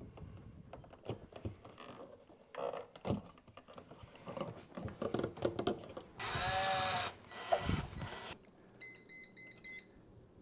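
Handling clicks and knocks of outlet hardware, with a power drill-driver running briefly about six seconds in. Near the end, a quick run of short, high electronic beeps.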